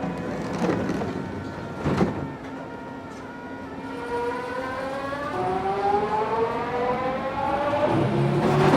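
Metro train's electric traction motors whining, the whine rising steadily in pitch from about halfway through as the train picks up speed. Two sharp knocks come in the first two seconds.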